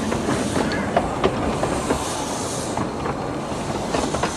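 A 15-inch gauge miniature railway train running slowly along the track: a steady rumble with irregular clicks as the wheels go over the rail joints.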